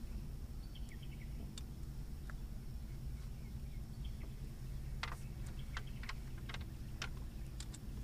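Sharp, irregular clicks from rod-and-reel tackle as a hooked catfish is reeled in, coming in a run of several clicks about five seconds in, over a steady low hum.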